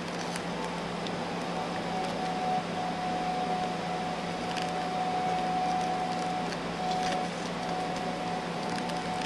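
Steady room hum and hiss with a faint thin whine, probably an appliance or fan running, and a few faint clicks from a plastic action figure being handled as it is stood up.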